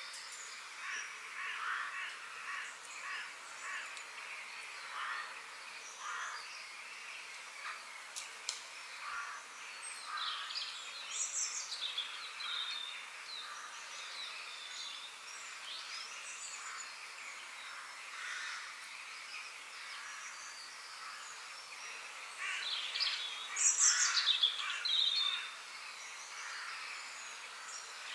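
Birds chirping and calling in short, repeated bursts over steady background noise, with a busier, louder run of calls a little before the end.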